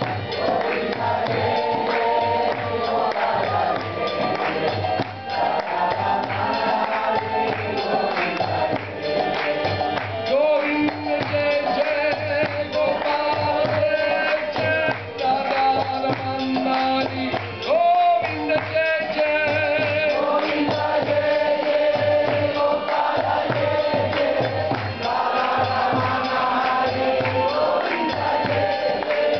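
Hindu devotional bhajan: singing over a pumped harmonium, with a mridanga barrel drum keeping a steady beat and light, jingly percussion on top.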